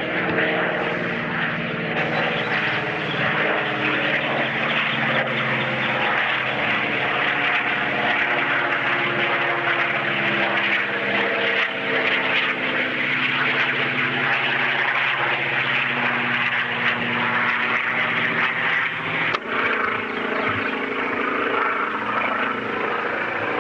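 An engine running steadily, a drone whose pitch drifts slowly, with a click and a shift in its tone about three-quarters of the way through.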